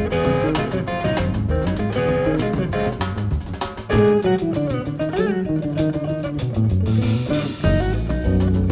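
A jazz group playing: guitar lines with bent notes over drum kit and bass.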